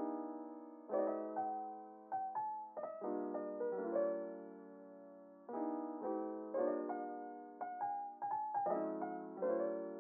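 Background music: a soft piano melody, notes struck one after another and left to ring out.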